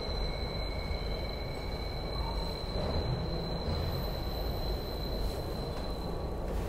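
SEPTA Broad Street Line subway train running at speed, heard from inside the car: a steady rumble of wheels on rail with a thin, steady high-pitched whine over it.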